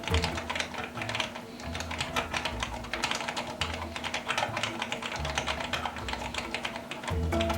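Fast typing on a Penna retro typewriter-style keyboard: a dense, continuous run of key clicks.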